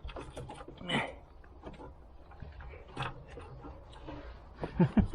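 Scattered light clicks and taps of hands and tools working on car parts, with a quick run of sharper knocks near the end, over a faint low hum.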